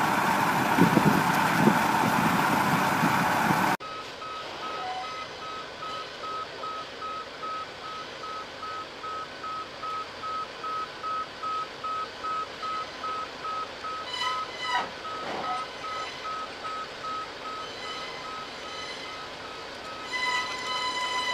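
A few seconds of loud rushing noise that cuts off abruptly, then a vehicle motion alarm beeping steadily about twice a second while a heavy mobile crane drives up onto a low-loader trailer. There are a couple of short clanks in the middle, and a second, richer-toned beeper joins near the end.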